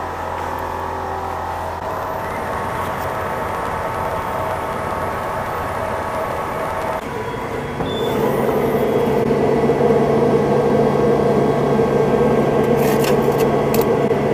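Steady mechanical hum from a Makeblock xTool laser cutter, stepping up louder a little past halfway as its lid is opened, with a few light clicks near the end.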